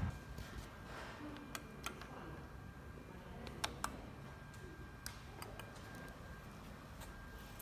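Scattered faint sharp clicks, mostly in close pairs, over quiet room tone with a faint steady high hum.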